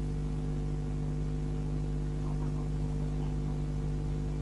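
Septic-tank suction truck's engine and vacuum pump running, a steady low drone that holds level throughout.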